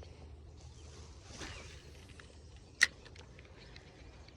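A soft swish, then a single sharp click about three seconds in, followed by a few faint ticks, over a quiet outdoor background.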